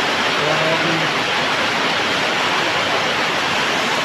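Heavy rain falling in a loud, steady rush, with water pouring off the roof edges onto the roof of a tricycle sidecar.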